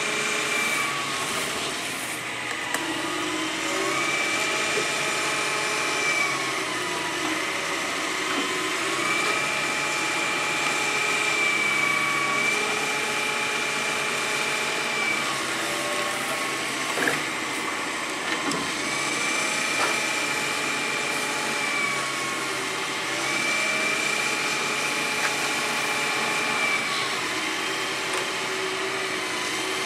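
Large tracked hydraulic excavator working, its engine and hydraulic pump whine stepping up and falling back in pitch every few seconds as the boom and bucket are moved. A couple of sharp knocks sound in the second half.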